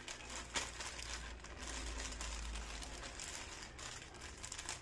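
Thin plastic shopping bag crinkling and rustling as it is folded and turned over by hand, with irregular crackles throughout.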